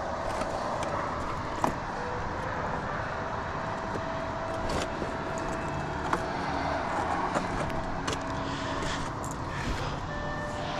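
Hiking boots stepping on loose rock, with a few scattered sharp clicks of stone knocking on stone. Under them runs a steady rush of distant road traffic.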